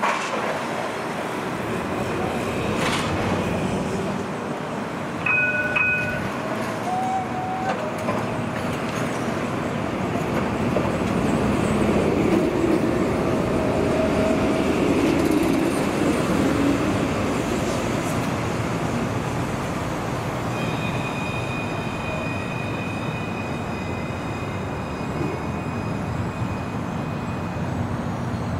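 A Melbourne tram running on its rails, the rumble swelling to its loudest about halfway through. There are a few brief beeping tones about six seconds in, and a steady high-pitched whine over the last several seconds.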